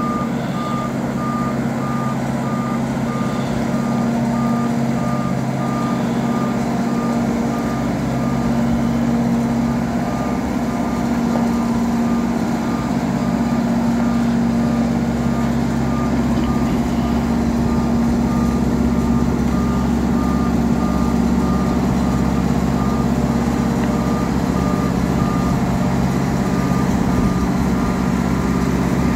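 Wise travel hoist (boat lift) with its engine running in a steady hum and its warning alarm beeping evenly and continuously.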